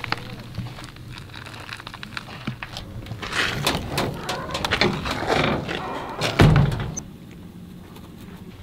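A door being handled: clicks and rattles from its knob and latch, then one heavy thunk about six and a half seconds in.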